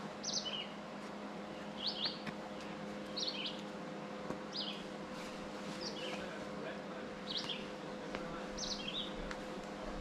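A songbird repeating a short, high two-part phrase about every second and a half.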